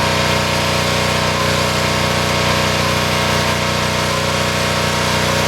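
A pressure washer's engine running at a steady pitch, with an even hiss over it.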